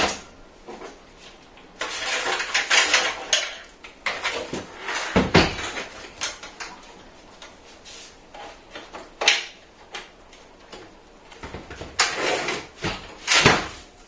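Sleeved power-supply cables being pulled and pushed through the cutouts of a steel PC case: rustling and scraping with irregular clicks and knocks against the case, the loudest knocks about five seconds in and near the end.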